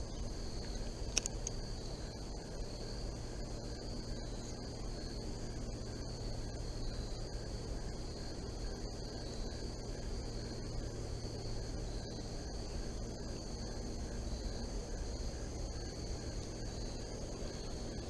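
Steady chorus of insects trilling in high continuous tones over a low steady outdoor rumble, with one sharp click about a second in.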